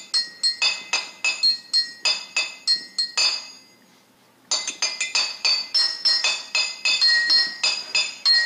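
Bright, ringing, chime-like strikes in a quick even run, about three a second. They break off for about a second midway and then start again.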